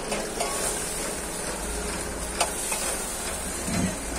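Food sizzling steadily as it fries, with a couple of sharp clicks about two and a half seconds in.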